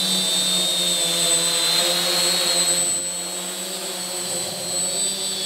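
Quadcopter's four electric motors and 8-inch propellers running steadily in a hover, a high whine over the buzz of the props, easing a little about three seconds in.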